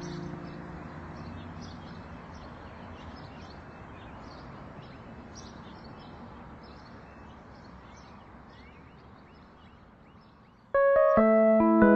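The last chord of a guitar song dies away, leaving faint outdoor ambience: a steady hiss with small birds chirping. Near the end, electric piano music starts abruptly.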